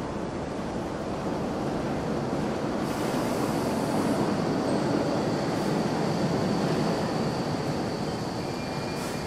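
Subway platform ambience: the steady rumble of an approaching subway train, swelling a little in the middle, with a thin high whine from the rails that starts about three seconds in.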